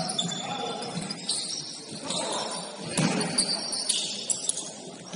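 Basketball game on a gym court: the ball bouncing on the floor several times, with short high squeaks of shoes on the hardwood.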